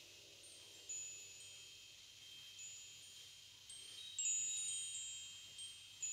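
Chimes ringing with several high metallic tones, struck about four times, each note ringing on and fading slowly; the loudest comes a little past the middle.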